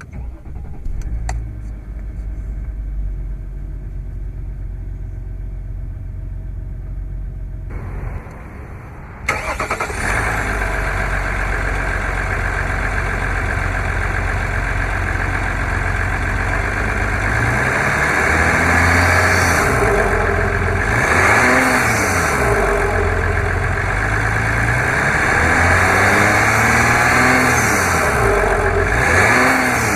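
Vehicle engine starting and idling steadily, then about nine seconds in becoming much louder, with engine speed rising and falling again and again from about the middle on, as under way or being revved.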